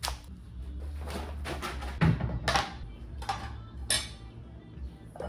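Kitchenware clinking and knocking: several separate sharp strikes with short ringing tails over a low steady hum.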